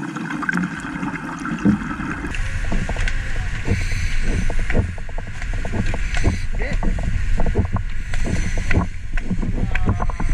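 Bubbling underwater for about two seconds, then a dive boat's engine running at the stern with water splashing and churning and wind buffeting the microphone.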